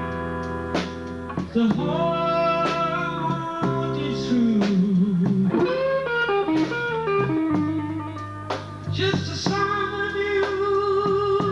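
Live band music in a blues style: a male voice singing over guitar.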